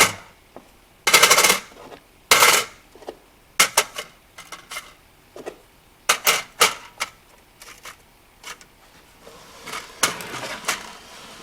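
Heavy cast pure-copper coins clinking and clacking against one another as they are piled together, a dozen or so separate knocks, the loudest two about one and two seconds in ringing briefly.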